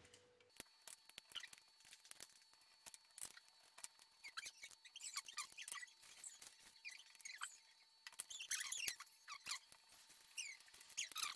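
Faint clicks and taps of small wooden craft-stick pieces being cut and handled on a tabletop, amid many short, high squeaky chirps. A faint steady whine starts about half a second in.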